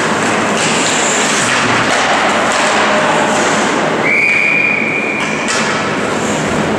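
Steady noisy ice-rink sound of a hockey game in play. About four seconds in, a referee's whistle blows one long, steady blast, signalling a stoppage in play.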